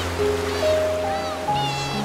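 Background music: held melody notes stepping from one pitch to the next over a steady bass, with short high chirps and a steady wash of noise underneath.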